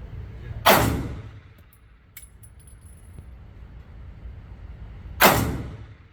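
Two 9mm pistol shots about four and a half seconds apart, each with a sharp crack and a short echoing decay. Light metallic clinks follow the first shot: spent brass casings landing.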